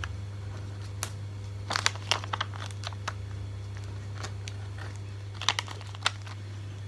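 Scattered light paper crinkles and small taps as sticker spots are peeled from their sheet and pressed onto a paper collage, over a steady low hum.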